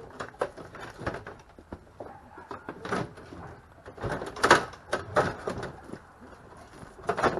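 Knocks, clunks and scraping of a riding mower's body being worked loose and shifted on its frame, with the loudest scrape about four and a half seconds in.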